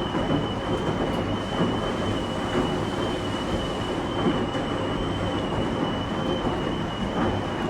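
Coin-laundry machine running: a steady drum rumble with small irregular knocks and a constant high whine over it.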